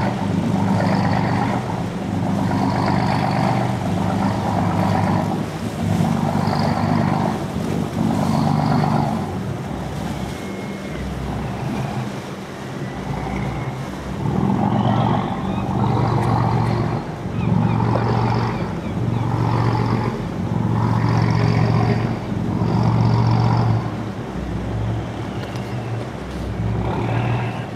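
Small fishing boat's engine running at low speed, its note swelling and falling every second or two.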